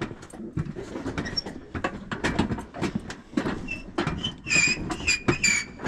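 Footsteps on a wooden dock, the boards knocking and creaking underfoot in a steady run of thuds, with a high drawn-out squeak in the last second and a half.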